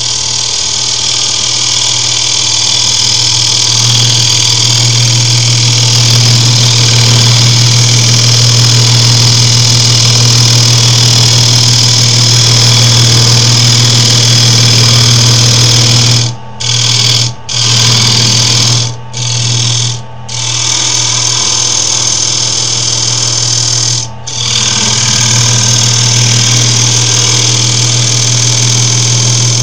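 Wood lathe running with a steady motor hum while a turning tool cuts into the spinning wood, giving a continuous hiss; the sound drops out briefly several times in the second half.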